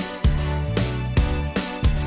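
Background music with a regular beat and a moving bass line.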